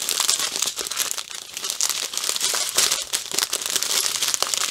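Small clear plastic bags of diamond painting drills crinkling and crackling as they are handled and shuffled, a continuous run of tiny clicks.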